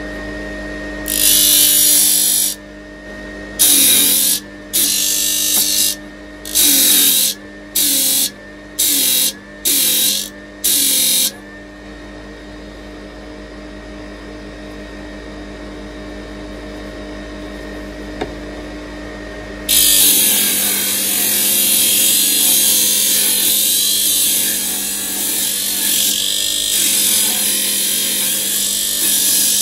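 Parkside PTSG 140 C2 disc sander's motor running with a steady hum while the end of a wooden dowel is pressed against the spinning sanding disc. In the first third there are eight short bursts of loud sanding hiss, and the motor's pitch dips slightly under load with each one. After several seconds of free running, sanding goes on continuously for the last third.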